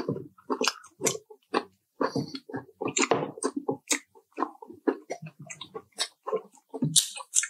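Close-miked chewing and biting of crispy fried chicken: a quick, irregular run of short wet smacks and crunches, with a louder crunch near the end.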